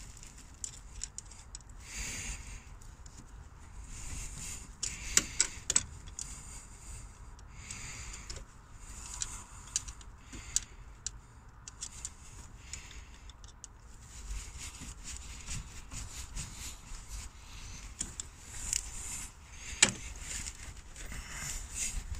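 Hand work in an engine bay: a screwdriver tightening a jubilee clip on a heater hose, with soft rustling and scraping and scattered sharp metal clicks, the loudest about five seconds in and near the end.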